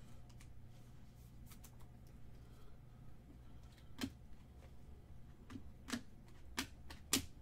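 Trading cards being handled and set down on a table: light taps and clicks over a faint low hum, the clearest about four seconds in and three more near the end.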